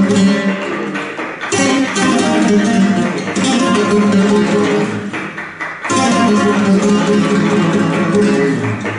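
Flamenco guitar playing, with sharp strummed chords about one and a half seconds in and again near six seconds.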